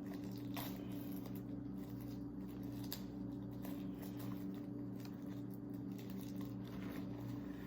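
Faint handling noise of a catalog's packaging being opened: scattered light clicks, tearing and crinkling, over a steady low electrical hum.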